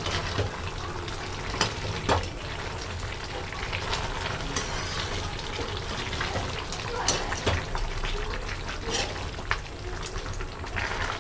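Vegetable curry in a little thick gravy simmering and sizzling in a metal kadhai while a perforated steel ladle stirs it. The ladle scrapes and clinks against the pan every second or two.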